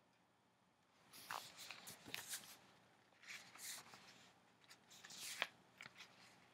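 A book being handled: faint paper rustling in short irregular bursts, with a few soft taps.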